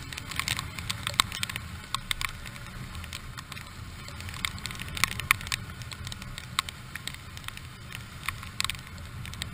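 Rain striking the camera housing in irregular sharp ticks, over the low steady rumble of a motorcycle riding through rain on a wet street.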